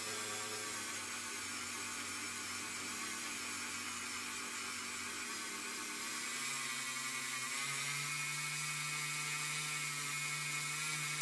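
Small handheld rotary tool spinning a wire brush wheel against a zinc-plated die-cast toy car base, a steady high whine. Its pitch steps up a little about six to seven seconds in.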